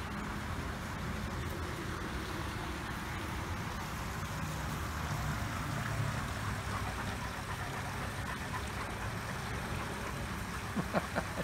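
Steady low outdoor background rumble with a soft hiss and no distinct events; a man's voice begins near the end.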